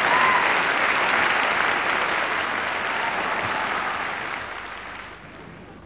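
A live audience applauding, the clapping thinning out and dying away over the last second or so.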